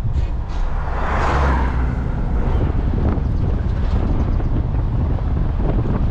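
Strong wind buffeting the microphone in a steady low rumble, with a brief rushing swell about a second in.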